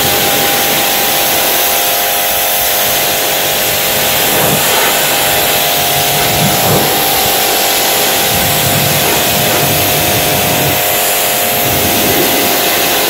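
Pressure washer running with a steady machine whine and the hiss of its water jet spraying a bicycle wheel and tyre.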